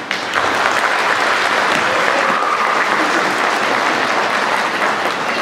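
Audience applauding, starting about a third of a second in and holding steady, with a few voices calling out above the clapping.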